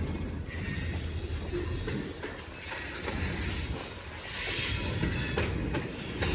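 Union Pacific freight train's cars rolling past on the rails: steady low wheel-and-rail noise with faint high-pitched wheel squeal and a few clacks over the rail joints.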